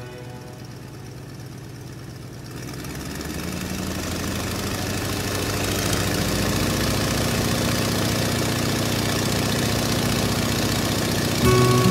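Airliner's engines running with a steady drone, fading up over the first few seconds and then holding level.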